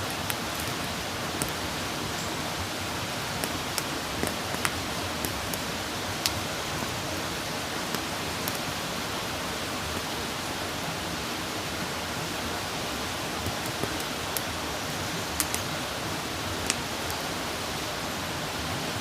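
Wood campfire burning: a steady hiss with sharp crackles and pops at irregular intervals.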